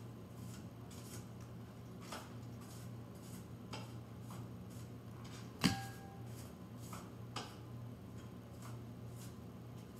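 A girl chewing a cheese quesadilla close to the microphone: soft, scattered mouth and chewing sounds over a steady low hum, with one sharper click about halfway through.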